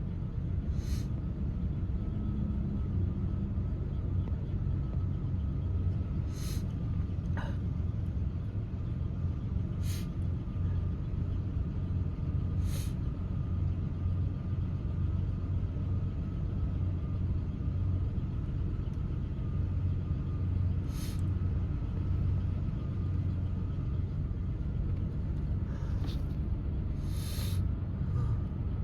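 A steady low rumble runs throughout. About eight short, hissy sniffs are scattered through it, from a person with an itchy, runny nose.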